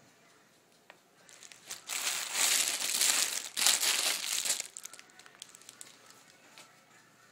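Plastic and foil candy wrappers crinkling as a dog noses and chews at a pile of wrapped candy. The crinkling starts about a second in, is loudest for about three seconds, then dies away.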